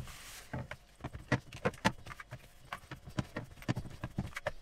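Hands kneading and squeezing sticky bread dough in a mixing bowl: a quick, irregular string of soft squelches and taps.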